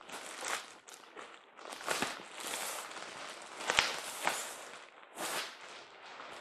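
Plastic shrink wrap and bubble wrap crinkling and rustling as a boxed model locomotive is handled, in irregular bursts with a few sharp clicks, the loudest a little before the midpoint.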